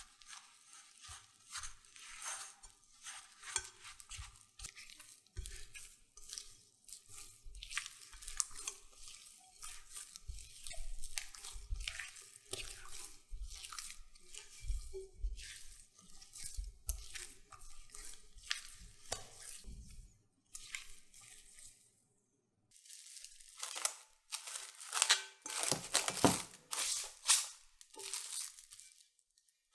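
Crisp crunching and crinkling sounds of hands preparing food: many short rustles and light taps in quick succession. A short gap comes about two-thirds of the way through, after which the crunching is louder.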